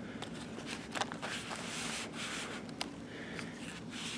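Soft rustling and scraping with a few light clicks as a coil-building tool kit case is opened and its tools handled; the rustle swells briefly in the middle.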